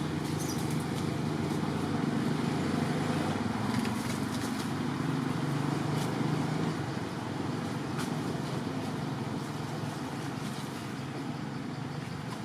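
A motor vehicle's engine running with a steady low hum, growing a little louder a couple of seconds in and easing off over the last few seconds.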